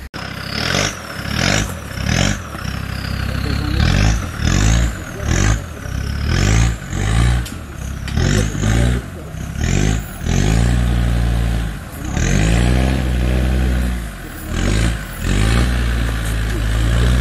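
Land Rover Discovery TD5's five-cylinder turbodiesel revved hard in quick repeated bursts, with a high whistle rising and falling on each, then held at high revs for longer stretches in the second half, as it claws up a rocky rut on 37-inch mud tyres.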